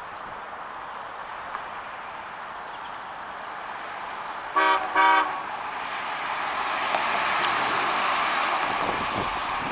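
1990 Cadillac Brougham's horn giving two short toots in quick succession as the car approaches, followed by the car driving past, its tyre and engine noise swelling and then easing near the end.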